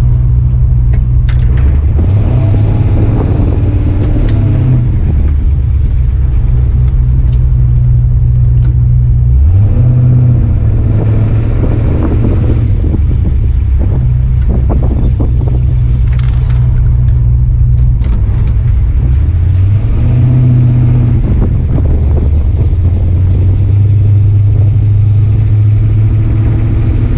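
Turbocharged V8 engine of a Dodge pickup running under load, its revs stepping up and down several times as it is driven.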